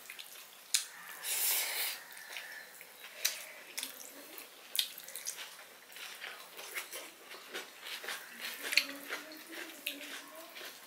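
Two people eating fried rice with their hands: wet chewing and mouth sounds with many small scattered clicks, as fingers work the rice on the plates.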